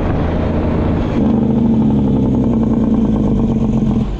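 N14 Cummins diesel truck engine with its Jake (engine compression) brake coming on about a second in: a loud, rapid-fire buzzing blat that slowly falls in pitch as the truck slows, then cuts off suddenly just before the end.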